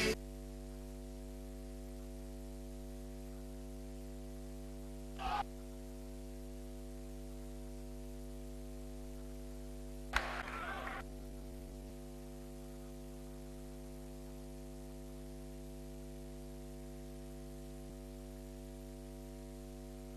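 Steady electrical mains hum with a stack of buzzing overtones, with no game or crowd sound. Two short faint noises break in, about five seconds in and again about ten seconds in.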